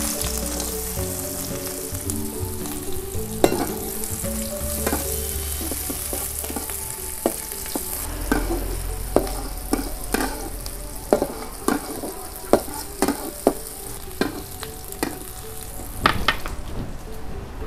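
Sliced shallots sizzling in hot oil in a stainless steel wok. A metal spatula stirs them, scraping and knocking against the wok about once a second from about halfway through.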